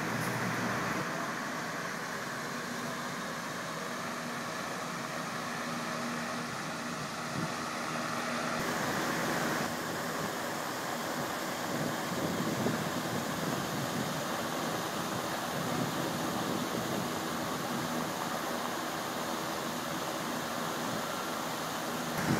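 Steady whir and rush of air from an electric fan in a painting machine, over a steady background hum; the sound shifts a little about nine seconds in.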